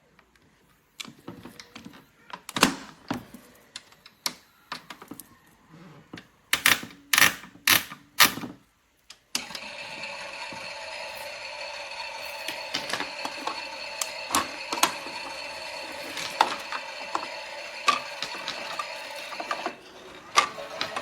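Clicks and knocks from handling a Theo Klein 6941 toy Miele washing machine. From about nine seconds in, its drum mechanism runs with a steady whir and clicking. It stops briefly near the end, then starts again.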